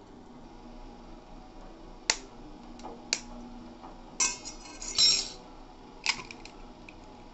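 A hen's egg knocked sharply against the rim of a stainless-steel bowl, with a few lighter taps. The shell then crackles as it is pulled apart over the bowl, and there is one more small knock near the end.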